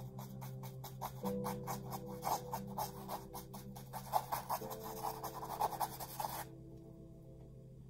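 Paintbrush scrubbing paint onto stretched canvas in rapid short scratchy strokes, which stop about six and a half seconds in. Soft background music of sustained chords plays under it.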